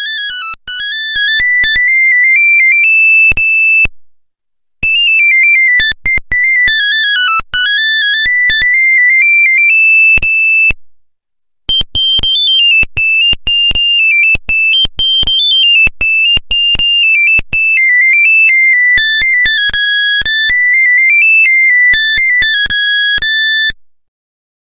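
Nokia 1100 monophonic ringtone: a quick melody of short beeping notes, one note at a time, in three phrases that each end on a held note. It breaks off briefly about 4 and 11 seconds in and stops shortly before the end.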